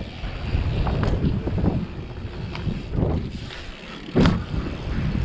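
Wind rushing over the microphone of a camera on a moving mountain bike, with scattered rattling knocks from the bike and one loud thump about four seconds in.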